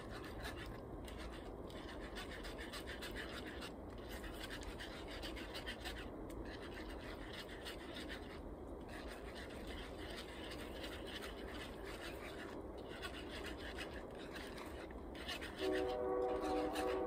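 A utensil scraping and stirring steadily in a skillet as heavy cream is worked into a butter-and-flour mushroom sauce. Near the end a steady held tone of several pitches at once comes in over it.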